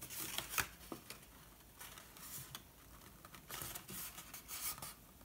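Sturdy paper treat box being folded and its glued side flap pressed shut by hand: faint rustling and light clicks of the paper, in two spells, near the start and again from about three and a half seconds in.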